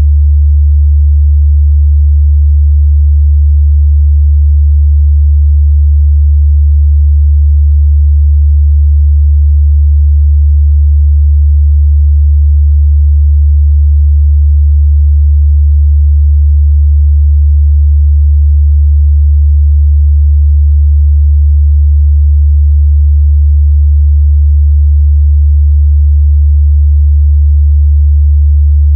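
A loud, steady 73 Hz sine-wave test tone: a pure, unbroken low hum in the mid-bass, used to check a speaker's or headphone's bass response.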